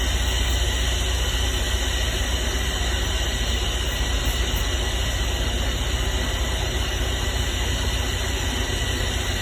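A steady, even machine drone with a strong low hum and a faint high whine, unchanging throughout.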